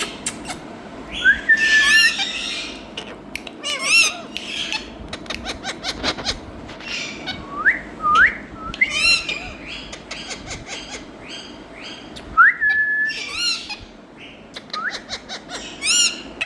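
Rose-ringed parakeet (Indian ringneck parrot) calling: repeated short squawks mixed with quick rising whistles, twice drawn out into a held, level whistle, with sharp clicks in between.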